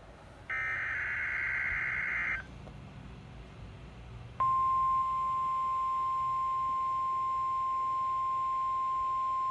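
NOAA Weather Radio emergency alert: a harsh, buzzy burst of SAME digital header data lasting about two seconds, then about two seconds later a single steady alert tone near 1 kHz comes on and holds.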